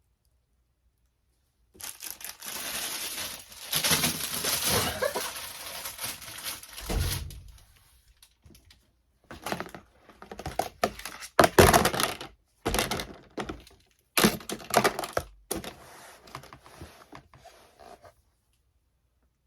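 Handling of fidget toys while sorting them: several seconds of rustling and crinkling, then a run of clattering knocks and thunks as toys are dropped and put into boxes.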